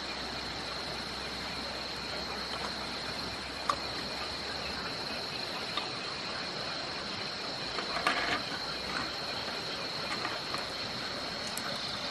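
Night crickets chirring in a steady high-pitched chorus over an even hiss, with a sharp click about four seconds in and a brief clatter of small camp cooking items being handled about eight seconds in.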